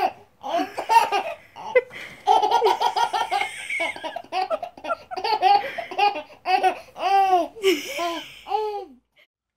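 A baby laughing hard in a long string of high-pitched bursts of laughter, stopping about nine seconds in.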